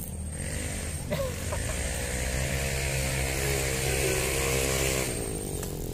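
A motor engine passing by: its steady note builds about a second and a half in, holds, then drops in pitch and fades about five seconds in.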